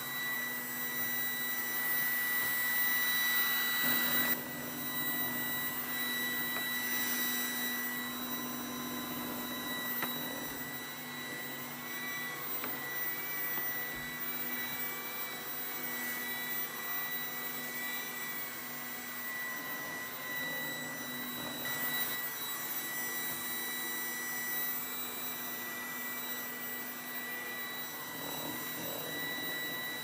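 Trifo Max robot vacuum running on carpet: a steady motor whine with a high tone over the rush of suction. It drops a little in level about four seconds in.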